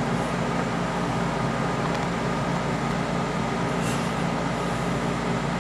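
Steady mechanical hum with an even rushing noise behind it, and a brief faint hiss about four seconds in.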